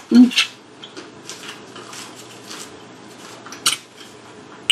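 Eating sounds: chewing and mouth clicks, with light clinks of cutlery against a plate. A short hummed "mm" just after the start, and a sharper click near the end.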